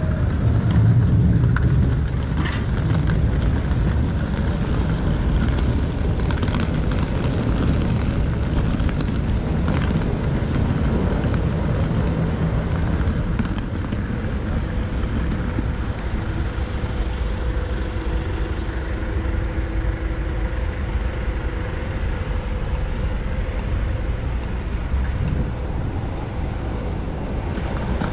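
City street ambience at a busy road junction: a steady low rumble of road traffic with passing cars, scattered faint clicks and pedestrian bustle, and a faint steady hum in the second half.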